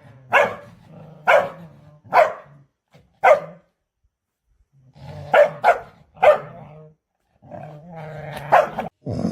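A dog barking in single, sharp barks about a second apart, then a brief pause and more barks, including a quick double bark.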